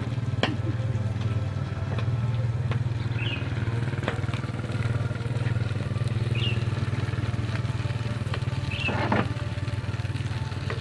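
Salmon fillets frying quietly on an electric grill plate over a steady low hum, with a few light clicks and a few short high chirps.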